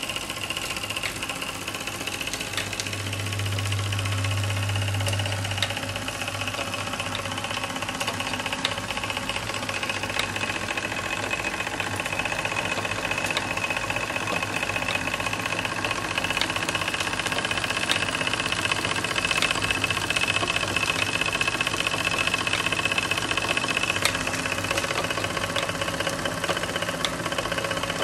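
MF Twin toy steam engine running steadily on live steam, driving the pulleys and spring belts of a Jensen 100 toy workshop, with the light ticking of the small belt-driven toy machines.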